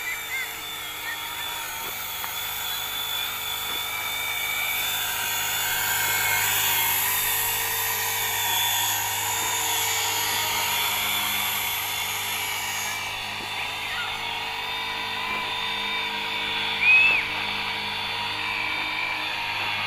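Electric RC helicopter on WLToys V950 mechanics, a 250-size Bell UH-1 Huey scale model, flying and hovering: a steady high whine from its electric motors over the whirr of the rotors, growing louder over the first few seconds. A brief louder sound comes near the end.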